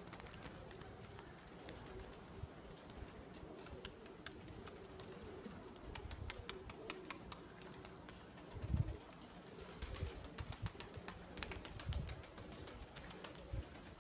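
Domestic pigeons cooing steadily, with scattered sharp clicks from about halfway through and a few low thumps, the loudest just past the middle.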